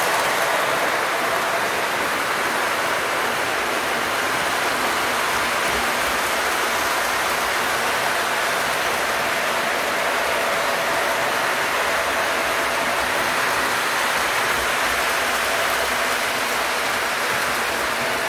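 O scale model freight train running on metal track: a steady rushing rattle of wheels on the rails, with a faint steady motor whine.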